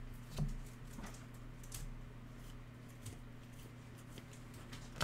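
2021-22 Panini Elite basketball cards being flipped through in the hands: faint clicks and slides of the card stock, one at a time, over a steady low hum, with a sharper, louder tap right at the end.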